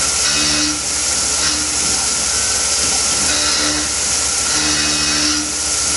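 Tormach PCNC 1100 CNC mill cutting 6061 aluminium with a 3/8-inch carbide end mill on a roughing pass, under flood coolant that sprays with a steady hiss. A low machine hum runs beneath it, and a second, higher tone comes and goes about every second as the cutter moves.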